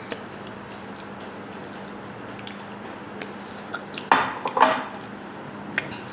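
A person eating instant noodles with a metal fork: a few small clicks of the fork, then two loud slurps about four seconds in as noodle strands are sucked into the mouth.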